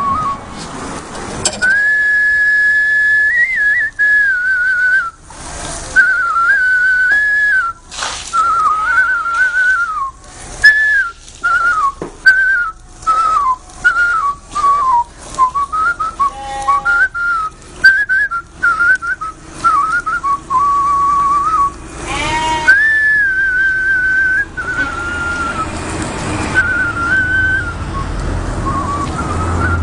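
A man whistling a tune: a single clear tone stepping and sliding between notes, with short breaks between phrases, thinning out near the end.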